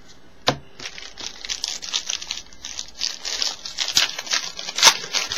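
Foil trading-card pack wrapper crinkling and tearing as it is ripped open by hand: a dense, continuous crackle, with a single sharp click about half a second in.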